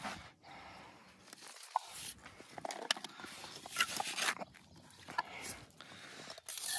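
Scattered light scrapes and short knocks of mortar and stone being worked by hand.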